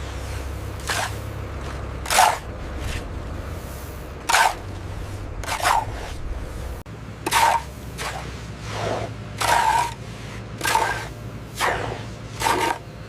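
A run of short swishing or scraping strokes, about one a second, over the low steady running of a construction machine's engine.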